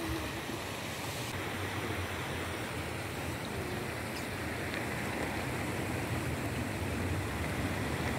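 Shallow, muddy rain-fed stream running over stones: a steady rushing and rippling of water in a bed that was dry before three days of rain. Low wind rumble on the microphone grows toward the end.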